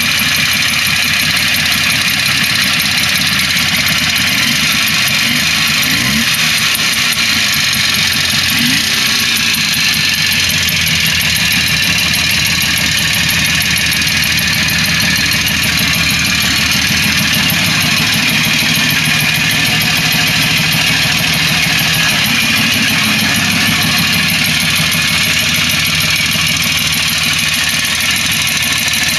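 Berkeley T60's air-cooled two-stroke twin engine, running on electronic ignition, idling steadily after starting first time. The pitch rises briefly twice, about six and nine seconds in.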